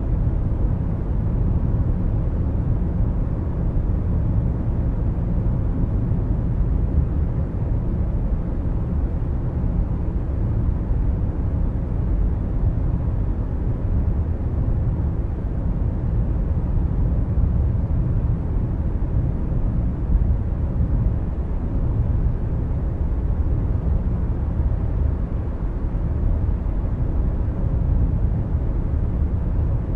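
Steady low rumble of a car cruising at motorway speed, heard from inside the cabin.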